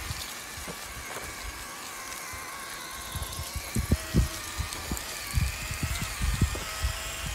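Small electric drive motors of a cardboard RC tractor whining steadily as the model drives over sand, with irregular low thumps.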